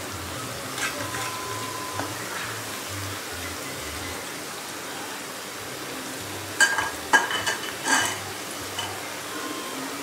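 Onion pakoras deep-frying in hot oil in a kadai: a steady sizzle, with a slotted spoon stirring through them at the start. A few sharp utensil clicks come between about six and a half and eight seconds in.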